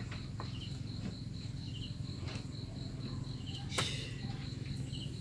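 Crickets trilling steadily at night, with a few light clicks of chopsticks and spoons against bowls and plates, the sharpest a little before four seconds in, over a low steady hum.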